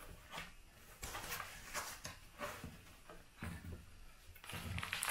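Faint handling noises from a foam-lined plastic pistol case: light rustles and small clicks and knocks scattered through, as hands move the foam insert and the case.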